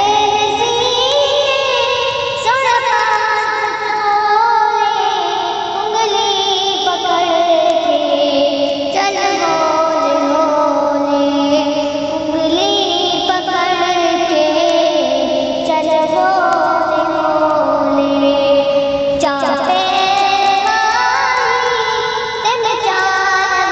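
A naat sung in a high voice, drawing out long held notes that glide up and down and waver.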